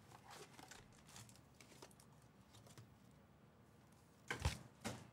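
Foil-wrapped trading card packs rustling and crinkling faintly as they are handled, then a thump about four seconds in and a lighter knock just after as they are set down on the mat.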